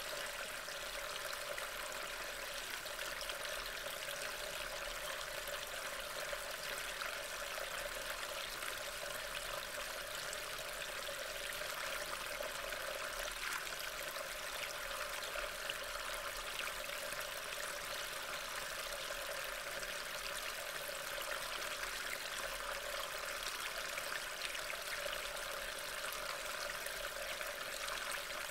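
Rain falling steadily: an even, unbroken hiss of drops.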